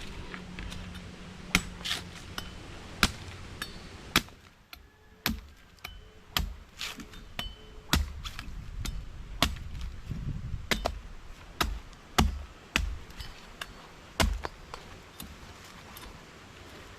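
An uneven series of about twenty sharp knocks and strikes, some with a brief metallic ring, with a lull a few seconds in.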